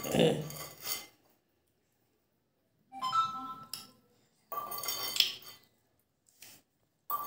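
Light clinks of glass bangles and a metal bowl while rice is eaten by hand, in a few short bursts with silent gaps between them; a couple of the clinks ring briefly.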